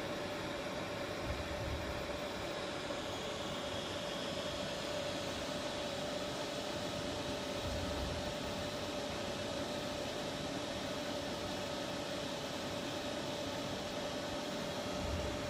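Steady whirring of a moving-head beam light's cooling fans, a constant hum tone running through the rushing noise.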